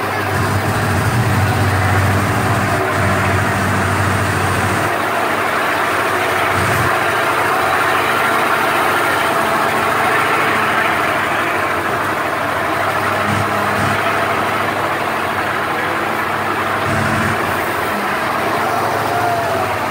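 Monster truck's engine running steadily as the truck drives, with a low hum that is heavier for the first five seconds, under a steady rushing noise.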